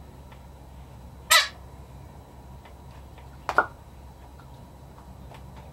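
Two brief, loud animal calls about two seconds apart, over a steady low hum.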